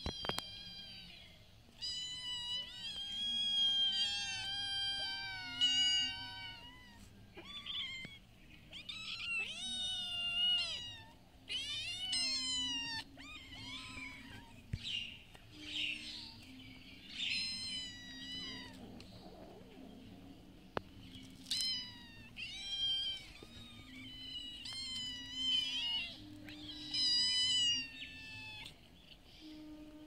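Kittens meowing over and over, a long run of high-pitched calls, many of them rising and falling in pitch.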